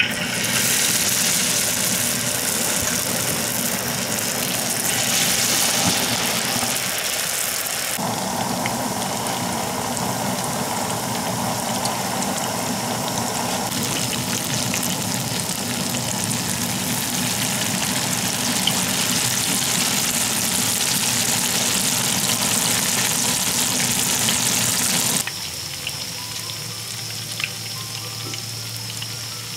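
Vegetable balls deep-frying in a wok of hot oil, the oil sizzling loudly and steadily as the batter cooks. Near the end the sizzle gives way to a much quieter low hum.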